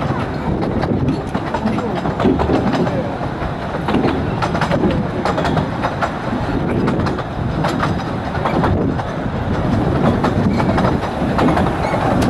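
A 15-inch-gauge steam locomotive stands with its tank being filled from a hose. Heavy wind buffets the microphone, giving a steady rumble broken by many irregular knocks.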